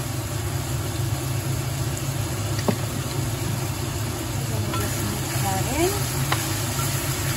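Ground beef sizzling as it browns in a stainless steel pan, over a steady low hum, with a wooden spoon stirring and scraping through it in the second half and a few light clicks.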